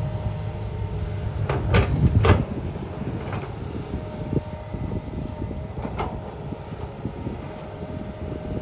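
Excavator at work: a steady low engine rumble with a thin steady whine over it, broken by sharp knocks and clanks, the loudest pair about two seconds in and another about six seconds in.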